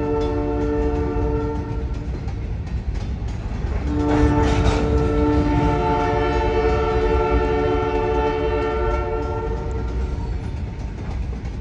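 A locomotive's multi-chime air horn sounds two long blasts over the steady low rumble of a loaded gravel train of hopper cars rolling past: the first ends about two seconds in, the second starts about two seconds later and holds for some six seconds.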